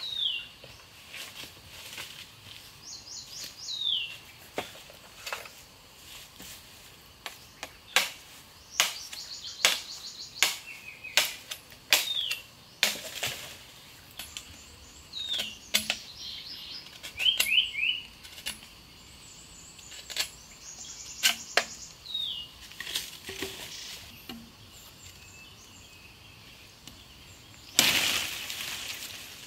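Forest birds calling: short whistled notes that drop in pitch, repeated every few seconds, with trills in between, over a string of sharp clicks and snaps from branches being handled. Near the end a machete slices along a green branch in a harsh scraping swish lasting about a second and a half.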